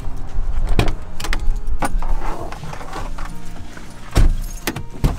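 Keys jangling and clicking in a van's door lock as it is unlocked, with scattered knocks and two heavy thumps near the end, over background music.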